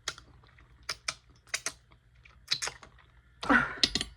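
Close-miked eating of a chicken wing: a series of sharp crunching and mouth clicks while chewing, with a louder cluster of crunches about three and a half seconds in.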